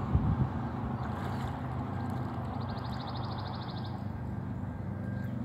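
Steady low hum of a motor vehicle's engine running close by on the bridge road, with a couple of low thumps just after the start.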